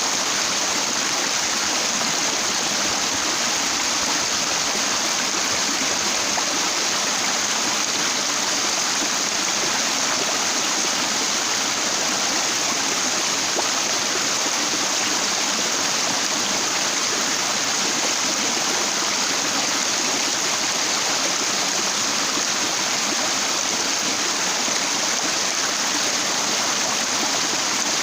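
Stream water running over and around rocks: a steady, unbroken rush with no change in level.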